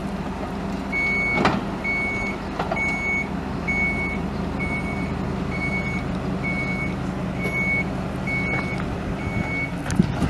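Truck's backup alarm beeping about once a second, some ten short beeps at one steady pitch, over the steady running of its 6.8L V10 gas engine, with a couple of light knocks near the start.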